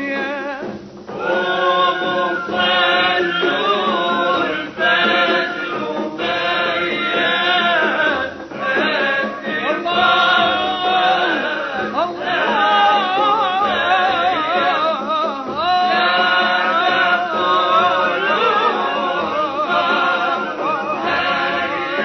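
Male voice singing a devotional Iraqi praise song (tamjid) in long, wavering phrases, with short breaks between phrases.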